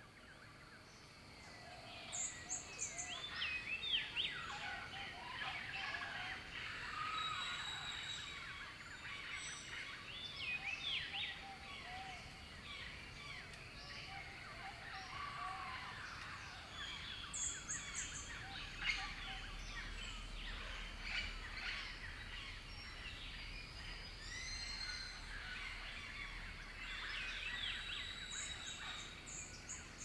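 A dense chorus of many jungle birds calling and chirping over one another, with a steady high whine underneath; it fades in over the first couple of seconds.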